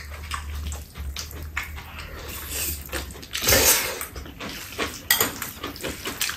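Chopsticks clicking and scraping against noodle bowls at a meal of spicy mixed noodles, with one loud slurp of noodles about three and a half seconds in.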